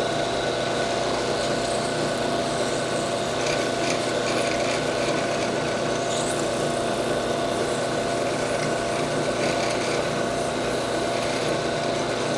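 Benchtop drill press running steadily, spinning a sandpaper-roughened 3/16-inch stainless steel rod, with a scraping, rubbing sound as the small engine cylinder bores are worked on the rod to clear burrs and smooth them.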